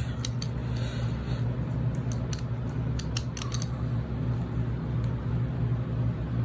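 Hand roller pressed along a freshly glued leather seam, giving a faint rolling rustle with a few light clicks, over a steady low hum.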